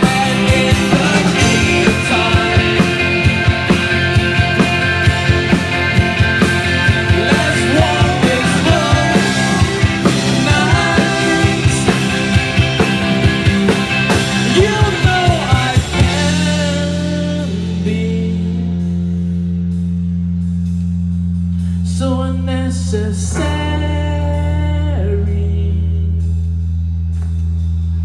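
Live indie rock band playing, with electric guitars, bass, keyboard, drum kit and singing. About sixteen seconds in the drums drop out, leaving long held low notes with a few sparse sung or guitar phrases over them.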